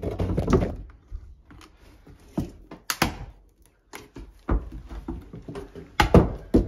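A sheet-metal cash box being handled as its lid is worked open and off: a string of separate sharp knocks and clanks, the loudest about six seconds in.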